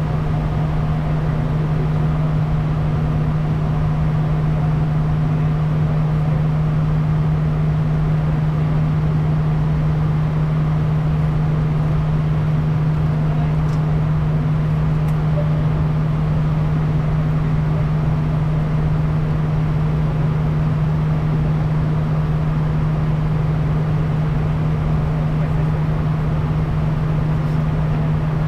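Steady interior noise of a Bombardier Challenger 350 business jet in flight: the drone of its Honeywell HTF7350 turbofans and airflow, with a strong, constant low hum underneath.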